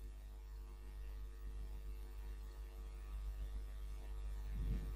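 Low, steady electrical mains hum with faint background hiss from the recording setup.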